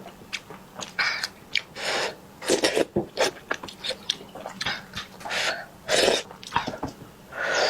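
A person eating from a bowl of soup: repeated slurps and sucking sips in quick, irregular bursts, with short pauses between them.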